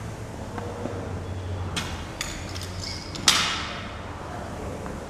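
Rubber bumper plate being loaded onto a steel barbell sleeve: a few light metallic clinks, then one loud metal clank about three seconds in that rings briefly.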